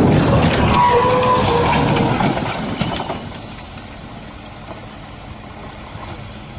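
Semi-truck crashing: a loud burst of crunching and scraping metal with short squeals, lasting about three seconds, then dying down to steady lower noise.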